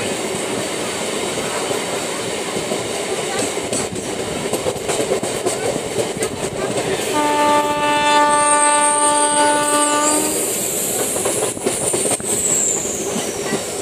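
Local passenger train running along the track, heard from the open coach doorway: steady running noise and wheel clatter. About seven seconds in, a train horn sounds one long held note lasting about three seconds.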